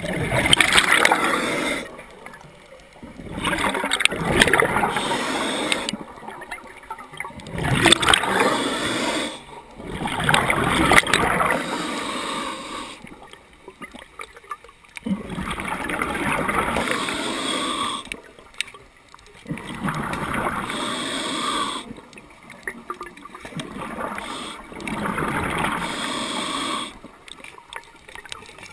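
A scuba diver breathing through a regulator underwater: bursts of exhaled bubbles gurgle and rush past the camera every few seconds, with quieter pauses between breaths.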